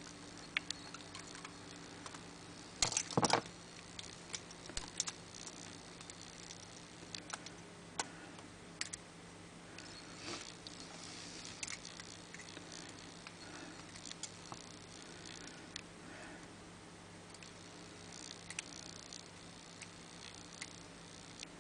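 Faint metallic clicks and scratches of lock picks working the levers inside a Squire four-lever padlock, irregular small ticks throughout, with a louder clatter about three seconds in.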